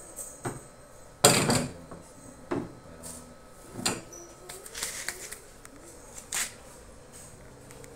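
Cut board strips and a cordless circular saw being handled and set down on a board-topped table: a series of knocks and clatters, the loudest about a second in, with the saw's motor off.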